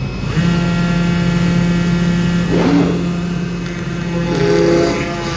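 CNC oscillating-knife foam cutting machine running: a steady motor hum, with shorter whines that bend in pitch about halfway through and again near the end as the drives move.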